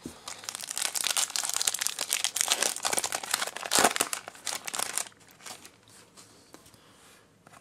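Foil Pokémon booster pack wrapper crinkling as it is torn open and the cards are pulled out: dense crackling for about five seconds, then only faint rustles.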